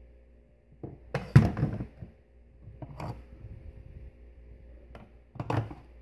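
Hard plastic vacuum attachments knocking and clattering as they are handled and put back on a wall rack. A burst of several knocks comes about a second in and is the loudest, then a single knock around three seconds and another near the end.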